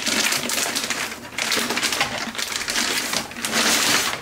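Clear plastic bag crinkling and rustling as a rack-mount unit is pulled out of it, with a short lull a little over a second in.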